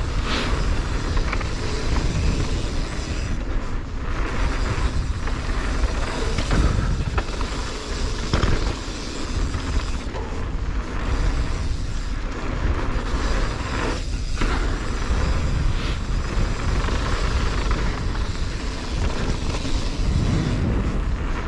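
Mountain bike riding a dirt flow trail: a steady rush of tyres and wind with knocks and rattles from the bike over bumps.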